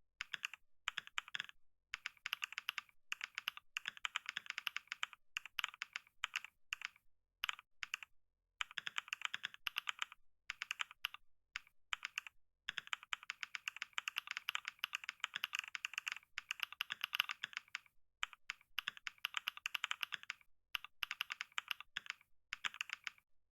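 Fast typing on a computer keyboard: rapid runs of key clicks in bursts of a second or several seconds, with short pauses between them.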